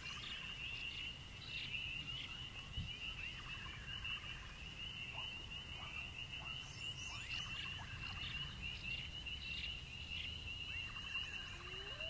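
Night-insect ambience: a steady, pulsing cricket trill, with scattered short chirps and calls from other night creatures over it and a faint low rumble underneath.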